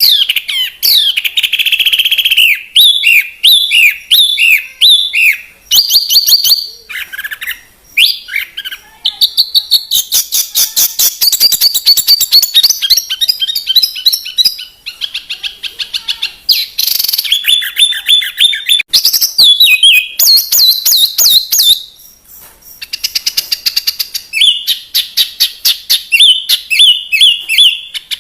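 Loud, varied cage-songbird song from a bird-training master recording: runs of repeated falling notes, fast chattering trills and high chirps, broken by short pauses, starting suddenly out of silence.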